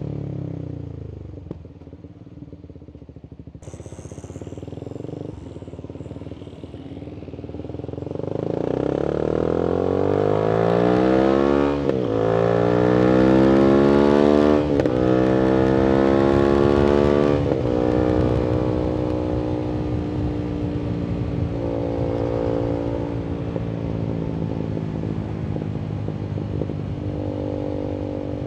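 Voge 300AC single-cylinder motorcycle engine through a free-flowing full-system exhaust, pulling away from low revs and accelerating hard through the gears, with three quick upshifts, each a sudden drop in pitch, about halfway through. It then settles into a steadier cruise.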